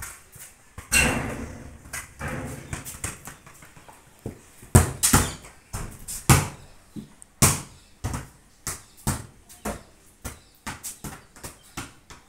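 A small ball bouncing and being played off a concrete floor under a sheet roof: irregular sharp hits with a short echo. A louder hit about a second in rings on briefly, the strongest hits come near the middle, and a quicker run of lighter knocks comes near the end.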